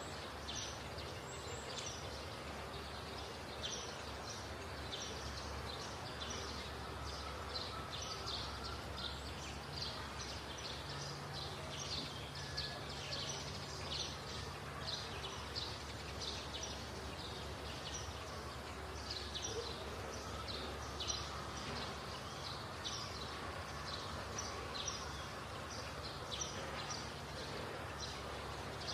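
Outdoor woodland ambience: small birds chirping over and over, short high chirps a few times a second, over a steady low background hum.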